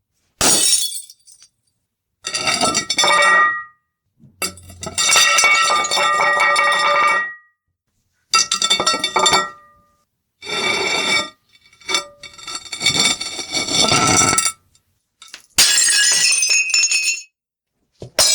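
Glass breaking and shattering, about eight separate smashes one after another with silent gaps between. Each is a sudden crash followed by ringing, clinking pieces, some lasting a second and the longest about three seconds.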